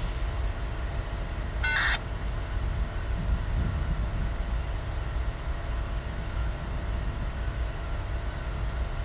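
Steady low rumble of rail yard background noise, with one short beep a little under two seconds in.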